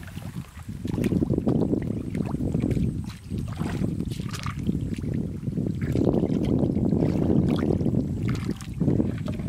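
Hands sloshing and groping in shallow muddy water, with short splashes, over wind rumbling on the microphone.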